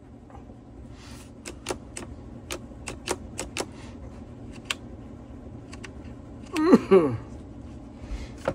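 A quick run of small sharp clicks and taps as the plastic and metal fittings of a Stihl cut-off saw are handled and worked at by hand, then one more click a second later. A short grunt-like voice sound comes about two-thirds of the way in.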